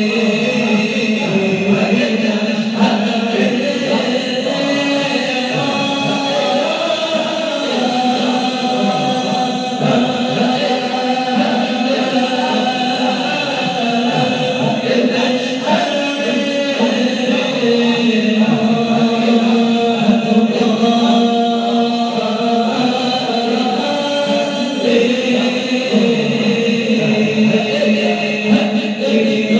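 A group of men chanting a nasyid, an Islamic devotional song, in unison behind a lead singer on a microphone, amplified through the hall's PA loudspeaker. It is continuous, with long held notes.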